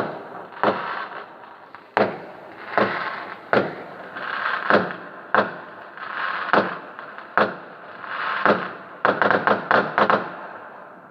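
Fireworks going off: a series of sharp bangs, each followed by an echoing tail, about one a second, then a quick run of half a dozen bangs near the end.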